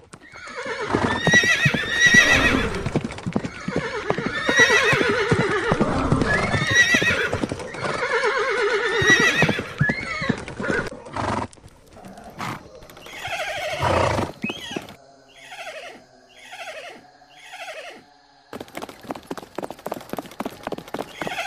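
Horses neighing and whinnying over and over, with hooves clip-clopping. Later come four short calls, then a quick run of hoofbeats near the end.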